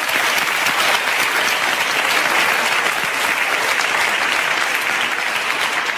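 Studio audience applauding, a steady dense patter of many hands clapping.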